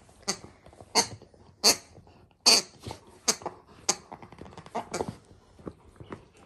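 Golden retriever puppy chewing and ripping at a stuffed plush duck toy: a run of short, sharp, noisy bursts, about one or two a second.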